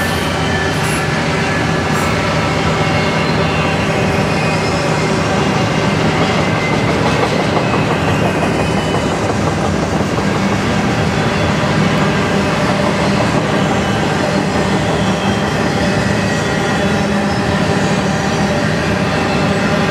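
Double-stack intermodal well cars of a freight train rolling past: a steady rumble of steel wheels on the rails, with a few steady humming tones running through it.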